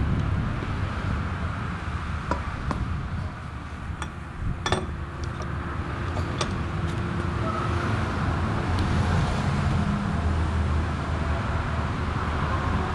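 Steady low road-traffic rumble, with several sharp metallic clinks as a long wheel-nut bar and socket are fitted and worked on the nuts of a semi-trailer wheel; the loudest clink comes about halfway through.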